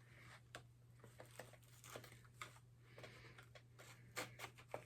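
Faint scattered clicks and short rustles of model-train packaging being handled, a little busier near the end, over a steady low hum.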